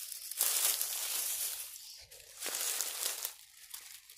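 Walking through dry leaf litter and brush: leaves crunching underfoot and twigs scraping against clothing, in two stretches of rustling, quieter near the end.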